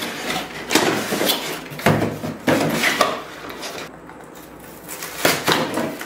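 Cardboard packaging inserts being pulled out of a box: scraping, rubbing and knocking of cardboard in bursts, busiest in the first three seconds, with a lull and another burst about five seconds in.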